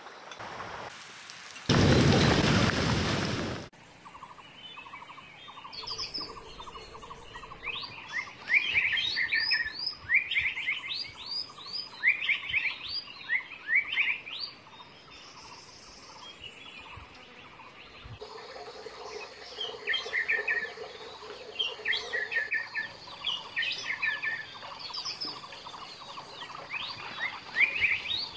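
Small birds chirping: clusters of short, quick, high chirps that come and go, over a faint steady drone. Near the start, a loud rushing noise lasts about two seconds and then cuts off abruptly.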